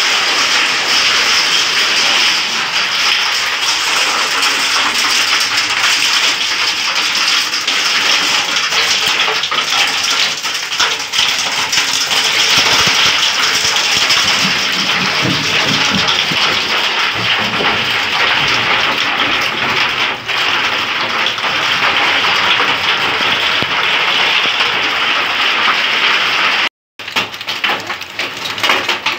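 Heavy hail falling with rain: a loud, steady hiss full of dense ticking from many hailstones striking. The sound cuts out for a moment near the end.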